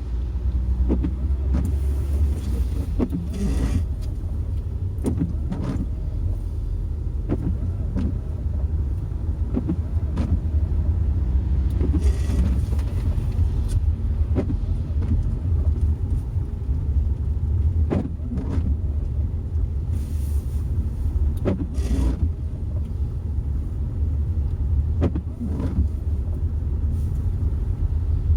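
Car driving on the road, heard from inside the cabin: a steady low rumble of engine and tyres, with short sharp knocks every second or two at uneven spacing and a few brief swells of noise.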